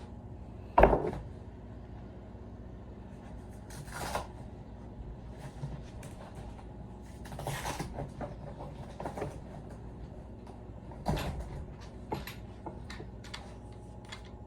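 Objects being handled and set down on a workbench: a sharp thump about a second in, then scattered lighter knocks, clatters and rustles.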